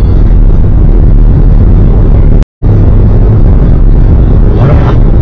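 Loud, steady engine and road rumble of a moving Suzuki Swift Sport, heard inside the car through the dashcam microphone. The sound cuts out completely for a moment about halfway through.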